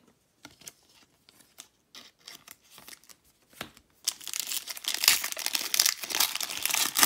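Faint handling of trading cards, then about four seconds in a trading-card pack wrapper is torn open with a dense crinkling and tearing that runs on to the end.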